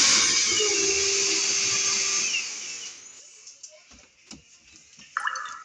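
Power drill running for about three seconds, drilling a mounting hole for a smoke alarm, then winding down. A brief sharp noise follows near the end.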